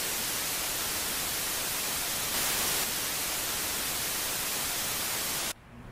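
Steady hiss of white noise, like static, with a slight swell about two and a half seconds in, cutting off abruptly near the end to faint room tone.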